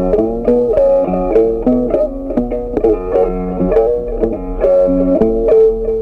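Background music on a plucked string instrument: a quick, even run of picked notes.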